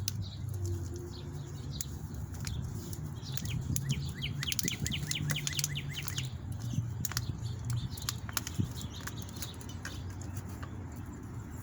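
Wild birds chirping and singing, with a quick run of short falling chirps a few seconds in, over a low wind rumble on the microphone.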